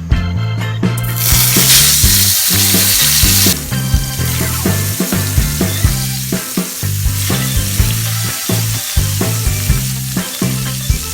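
Food sizzling in a pan of hot olive oil: the sizzle jumps up about a second in, is loudest for a couple of seconds, then settles to a steady sizzle. Background music with a steady beat plays underneath.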